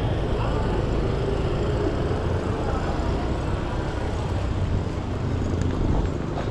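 Street ambience: a steady low rumble with motorbike traffic and faint voices.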